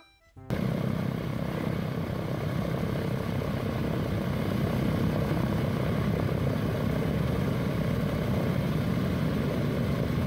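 Boeing B-17 bomber's four Wright Cyclone radial engines running steadily on the ground, cutting in about half a second in.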